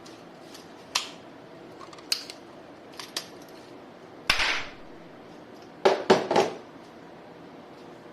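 Toy guns being handled and fired: a string of sharp plastic and metal clicks about a second apart, a longer burst about four seconds in, and three quick clacks near the end.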